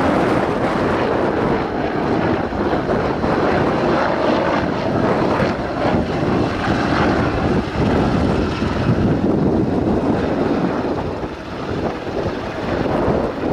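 AH-64E Apache attack helicopter flying, a loud steady rush of rotor and turbine noise, with wind buffeting the microphone.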